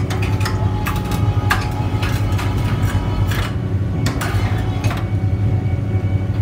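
A machine runs steadily with a low hum under a string of sharp knocks and clatters of metal and wood from work on the scaffold and forming rig. The knocking stops about five seconds in.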